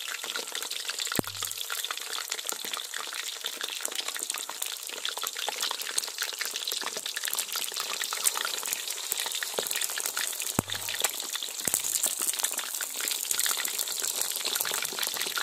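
Whole hardtail scad deep-frying in a wok of hot oil: a dense, steady crackling sizzle of fine pops. Two sharper clicks come through, about a second in and about ten seconds in.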